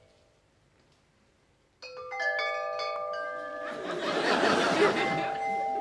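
Wind chimes struck in a quick cascade after nearly two seconds of near silence, their many notes ringing on, with a rushing swell of noise under them about two seconds later.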